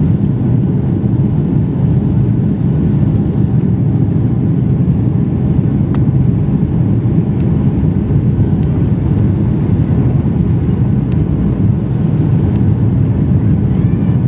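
Steady, loud low rumble of a Boeing 757-200's jet engines and airframe, heard from inside the passenger cabin as the airliner rolls along the runway for takeoff.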